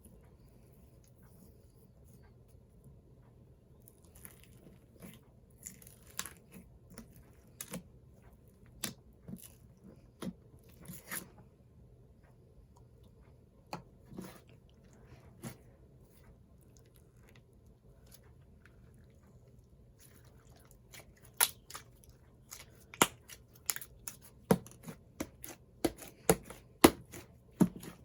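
Thick slime being squeezed and worked by hand, giving sharp crackling pops and clicks: scattered ones through the first half, then a dense run of louder pops in the last several seconds.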